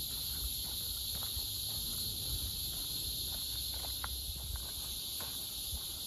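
Chorus of cicadas in the trees, a steady high-pitched buzz, with the footsteps of a walker on a dirt trail beneath it as irregular soft thuds and small clicks.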